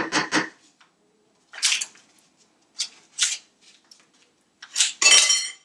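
Paper butter wrapper rustling as a wooden spoon scrapes butter off it, in several short bursts, the longest near the end.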